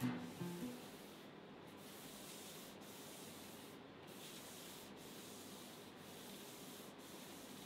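Abrasive pad rubbed by hand over a sealed wooden tabletop, scuffing the sealer coat before the finish top coat. It makes a faint, steady scratchy hiss in long strokes, breaking briefly about once a second as the stroke turns.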